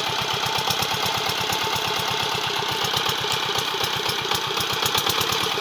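Small single-cylinder diesel engine of a water pump set running steadily, with a fast, even firing beat.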